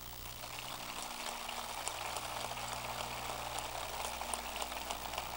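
Distant audience applause, an even crackling patter that swells slightly, over a steady low electrical hum.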